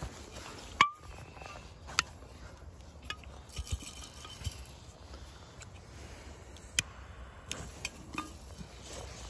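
A few short, sharp clicks and light metallic clinks from a steel thermos and a firecracker being handled and set down in a small hole in the ground.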